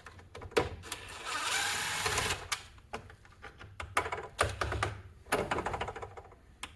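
Clicks, knocks and scraping of tools and parts being handled as a chop saw is taken apart, with a longer rasping stretch about a second in.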